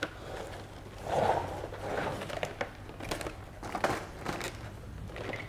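Thin clear plastic blister tray of potted plants being closed and handled, the plastic crinkling, with several sharp clicks.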